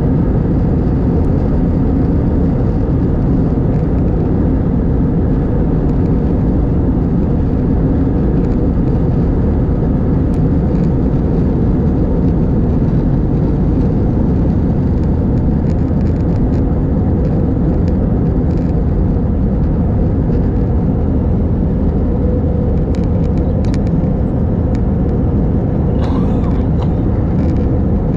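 Cabin noise inside an Airbus A321 at takeoff: the jet engines run steadily at takeoff thrust with a low rumble through the airframe, during the takeoff roll and climb-out. A few faint short clicks and rattles come near the end.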